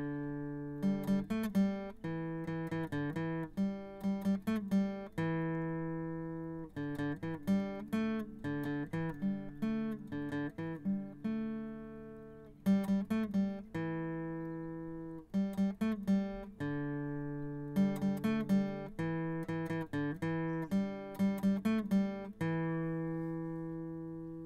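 Acoustic guitar playing: quick runs of picked notes, each phrase ending on a chord left to ring out, several times over.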